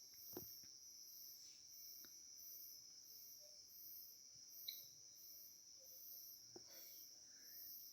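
Near silence with night insects chirping faintly: a steady high trill and a higher chirp repeating about three times every two seconds, with a few faint clicks.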